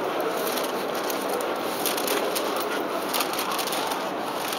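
Steady urban background noise, an even wash with no clear single source, with faint small clicks scattered throughout.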